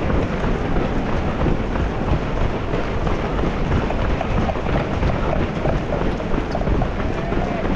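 Strong wind buffeting the microphone: a loud, continuous rumbling noise, heaviest in the low end.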